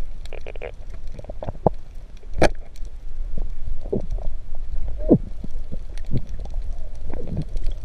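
Underwater sound: a steady low rumble of water, with short bubbling gurgles that rise and fall in pitch and one sharp click about two and a half seconds in.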